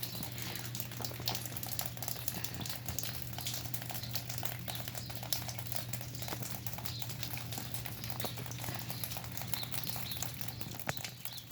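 Freezing rain pattering on ice-coated surfaces, a dense irregular ticking of small drops and ice pellets, over a steady low hum.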